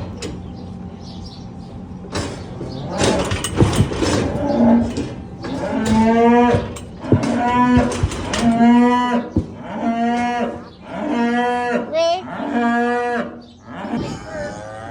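Beef heifers mooing, a run of about six calls each lasting about a second, starting about four seconds in. Before them, a short clatter of sharp knocks.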